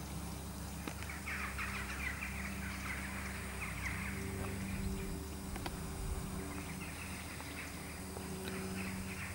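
Birds chattering in rapid, scratchy runs, first from about a second in and again near the end, over a steady low hum.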